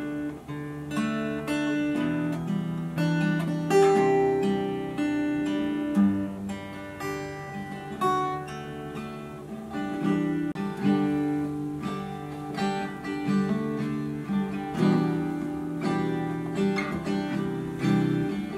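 Steel-string acoustic guitar playing an instrumental piece, plucked notes ringing out over bass notes.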